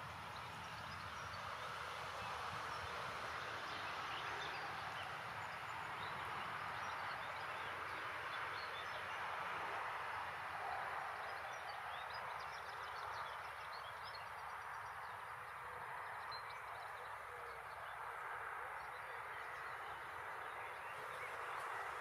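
Faint, scattered chirps of small birds over a steady outdoor background hiss.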